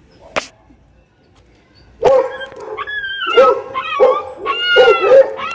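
A dog barking repeatedly, starting about two seconds in: a quick run of loud barks mixed with high-pitched yelps, roughly one or two a second. A single click comes just before, in near quiet.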